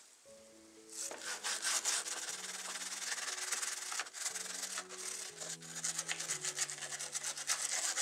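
Small stiff-bristled plastic brush scrubbing wet metal model-car parts in cleaning liquid, a rapid run of scratchy back-and-forth strokes starting about a second in. Soft background music plays underneath.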